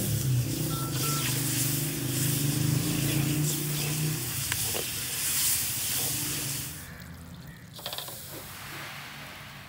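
Food sizzling in hot oil, a steady hiss, with a low hum under it for the first few seconds. The sizzling stops suddenly about seven seconds in, leaving a quieter background.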